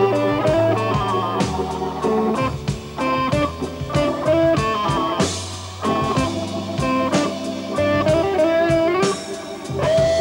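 Slow blues played live: an electric guitar solo with notes bending in pitch, over Hammond B3 organ and a drum kit with cymbals.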